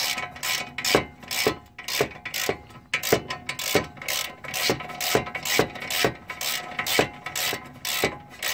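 Ratchet wrench with a 17 mm socket clicking in quick, even back-and-forth strokes, about two or three a second, as it undoes the outer tie rod end's nut.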